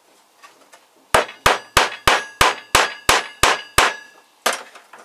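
Hammer tapping a nut down into a drilled hole: a quick run of nine ringing metallic blows at about three a second, starting about a second in, then a short pause and one more blow near the end.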